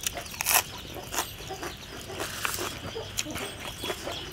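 Crunching as crisp raw vegetables are bitten and chewed close to the microphone. Several sharp crunches, the loudest about half a second in.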